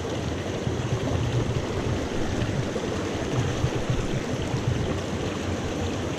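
Small mountain creek flowing, a steady rush of water.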